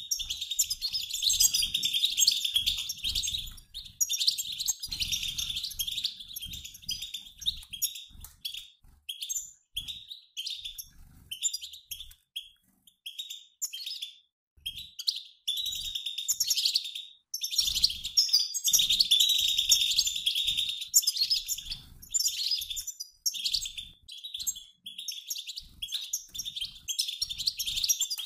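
A mixed flock of European goldfinches twittering, the 'batbata' call: rapid, overlapping high chirps. The chirping thins out to scattered calls around the middle, then turns dense again.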